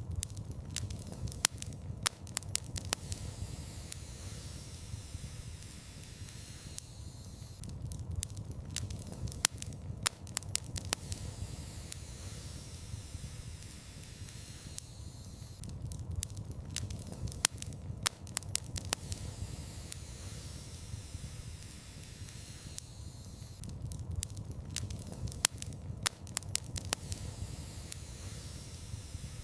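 Wood fire crackling in a fireplace: sharp pops and snaps come in clusters about every eight seconds, over a low steady rumble of burning flames.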